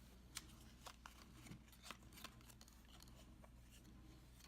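Faint handling of a small cardboard blind box and its wrapping: a few soft clicks and light rustles in the first half, then near silence with a low steady hum.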